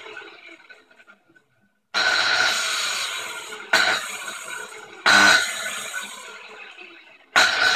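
Angle grinder fitted with a toothed circular saw blade, run free in short bursts. Four times the motor and blade start up abruptly with a whine and then die away over a second or so.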